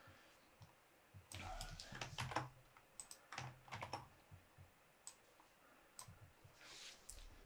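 Faint, scattered keystrokes and clicks on a computer keyboard, with a short run of them about a second in.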